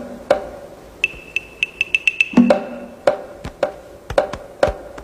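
Percussion track of sharp, ringing knocks at an uneven pace, with a quick run of about eight high ticks between about one and two seconds in.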